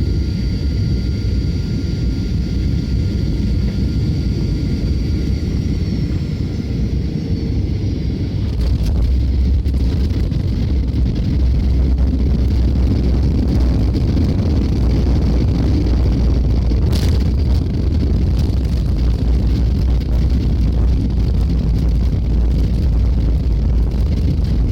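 Cabin noise of a Boeing 737-800 landing, its CFM56 engines humming with steady high whine tones. About eight seconds in, the sound jumps to a louder, deeper rumble of the landing roll on the runway, with a brief knock in the middle of it.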